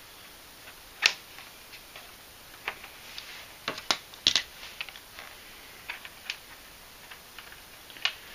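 Irregular small clicks and taps, about eight of them, from hands fitting hose clips onto the rubber fuel and vacuum lines at a plastic vacuum fuel pump; the clearest come about a second in and about four seconds in.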